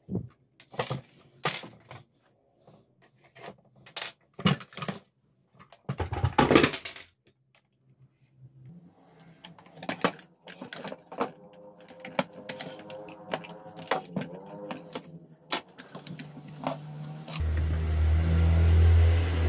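Clicks and small knocks of a screwdriver and the plastic housing of a cordless nailer being taken apart, with a short rattle about six seconds in. About two seconds before the end a steady low hum starts and becomes the loudest sound.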